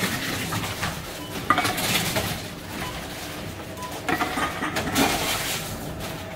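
A drink can and a plastic bottle being fed into a supermarket reverse vending machine: clinks and clatter as each container goes through the round intake and is taken in. There are two bouts of clatter, one about a second and a half in and one around four to five seconds.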